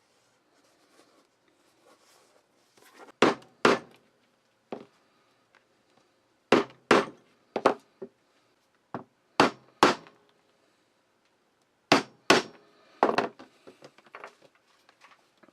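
Hammer striking a leatherworking tool: sharp blows, mostly in pairs about half a second apart, repeated every few seconds with lighter knocks between.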